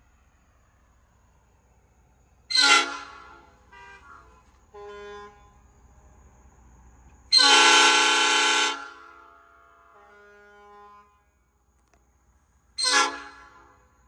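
Nathan five-chime air horn sounding its chord in three blasts: a short honk, a longer blast of about a second and a half, then another short honk. Each blast is followed by a fainter ringing tail.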